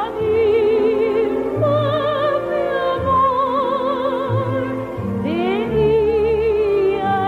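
A high operatic voice singing long held notes with strong vibrato over instrumental accompaniment.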